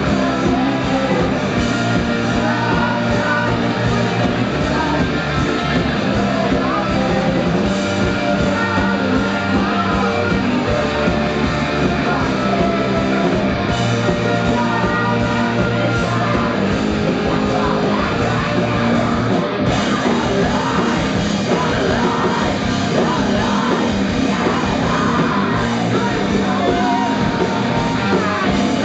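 Live rock band playing loud: electric guitar, bass guitar and drums, with a female singer's voice over them.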